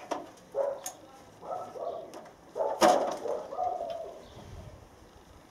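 Tall aluminium stepladder being folded shut: its hinges and spreader bars squeak and creak in short, irregular bursts, with metal clicks and one louder clank about three seconds in.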